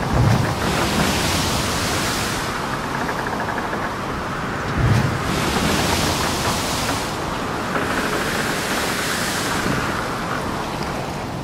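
Sea water rushing and washing, with wind noise: a loud hiss that swells in surges a few seconds apart, with low rumbles near the start and about halfway through.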